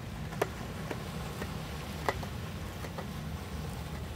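A handful of sharp, irregular taps and clicks over a steady low rumble.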